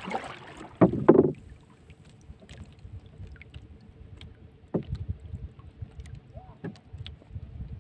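Water lapping against the hull of a small outrigger fishing boat as a handline is hauled in by hand, with two short loud sounds about a second in and occasional knocks against the boat.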